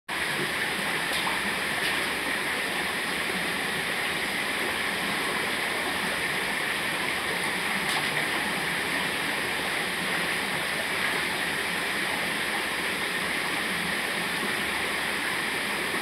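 Shallow rocky mountain stream flowing and splashing over a small cascade, a steady rush of water heard from inside a corrugated metal culvert pipe.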